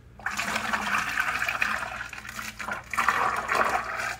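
Used motor oil pouring from a tipped drain bucket into another bucket, a steady splashing pour that starts a moment in, eases briefly about halfway and picks up again.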